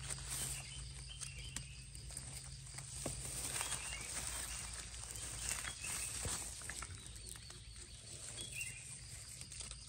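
Faint rustling and crackling of dry leaf litter and grass as gloved hands dig around and pull up wild mushrooms, with a few short faint chirps in the background.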